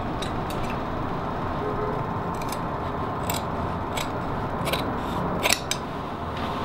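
Tailor's shears snipping, a series of separate sharp cuts at irregular intervals, trimming the canvas and padding around a coat's armhole.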